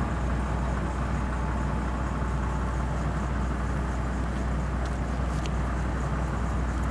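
Steady rumble of road traffic, with a low constant hum underneath.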